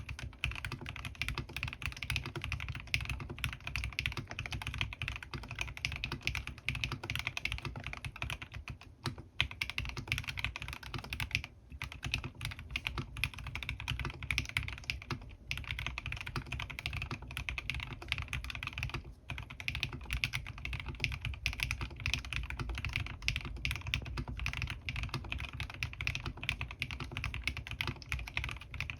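Continuous fast typing on a Bahm Studio Droplet custom mechanical keyboard with Krytox-lubed Gateron North Pole linear switches and PBTfans PBT keycaps: keys clacking in quick succession, with a few brief breaks.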